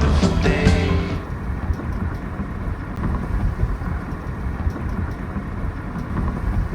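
Background music ends about a second in, followed by a steady low rumbling noise.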